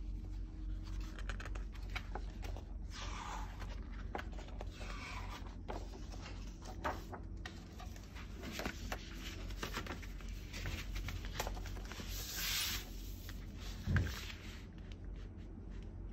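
Pages of a hardcover book being turned by hand: paper swishing and rustling in several brief sweeps, with small clicks of handling. A soft thump near the end as the book is closed.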